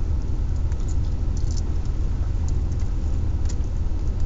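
Steady low rumble of a car's engine idling, heard from inside the cabin, with a few faint crackles from the fried chicken being handled and eaten.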